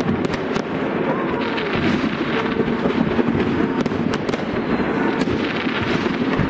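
Aerial fireworks going off: many sharp cracks and bangs in quick, irregular succession over a constant crackling din.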